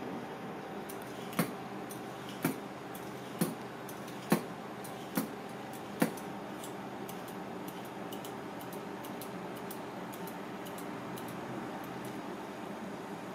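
Y-shaped vegetable peeler stroking down asparagus spears on a cutting board: six sharp clicks about a second apart, then only faint ticks, over a steady background hum.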